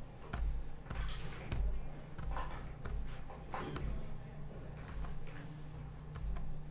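Irregular computer key clicks, about two a second, as a chess game is stepped through move by move, over a steady low hum.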